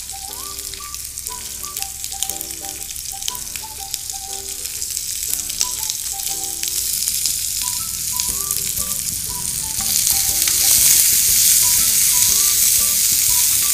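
Curry leaves and green chillies sizzling in hot oil in a non-stick kadai, with scattered sharp pops as the chillies burst. The sizzle grows louder about ten seconds in, and a spatula stirs the pan near the end.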